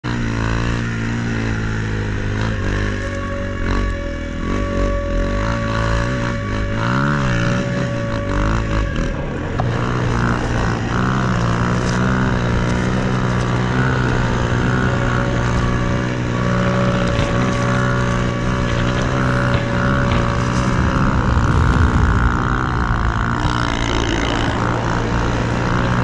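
Snow bike (a dirt bike fitted with a snow track and front ski) engine running under way through powder snow. Its pitch rises and falls over the first several seconds as the throttle is worked, then holds fairly steady.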